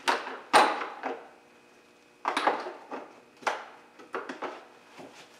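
Wrench and hand tools clanking against the metal of a car's front stabilizer link and strut: several separate sharp knocks and rattles, the loudest about half a second in.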